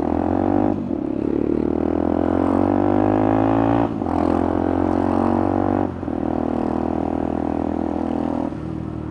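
Motorcycle engine accelerating up through the gears: the pitch climbs steadily in each gear, with a short dip at each of four upshifts.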